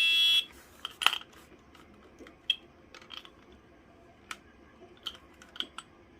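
A FireX smoke alarm's horn sounds one short, shrill blast at the very start and cuts off after about half a second. Then come scattered light plastic clicks and knocks as the alarm is handled, the loudest about a second in.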